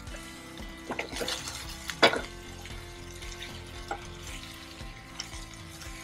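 Chilli chicken being stirred in a frying pan over high heat: a spatula scrapes and knocks against the pan over a steady sizzle. The loudest knock comes about two seconds in.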